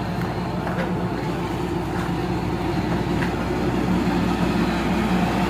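Excavator's diesel engine running steadily under load, a few faint knocks over it.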